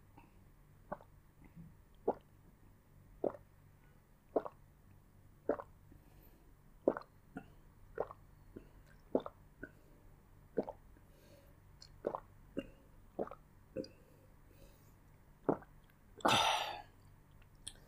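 Close-miked mouth sounds at the end of a meal: soft, wet clicks about once a second, then a longer breathy exhale near the end.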